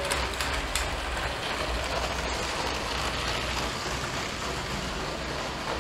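Battery-powered LEGO train running on plastic track, driven by a Bluetooth-controlled motor: a steady whirring rattle of the motor and of the wheels rolling over the track sections.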